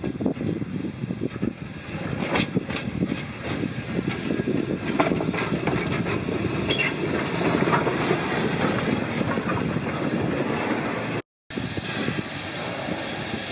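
Train running along the track: a steady rumble with scattered clicks from the wheels on the rails. There is a brief break in the sound near the end.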